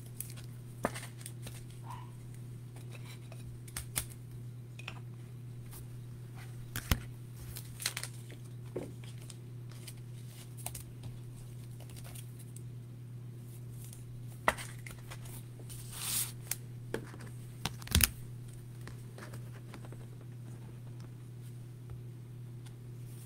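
Trading cards being handled and slid into plastic penny sleeves and top-loaders: soft plastic rustles and scattered sharp clicks and taps, the loudest about 18 seconds in, over a steady low hum.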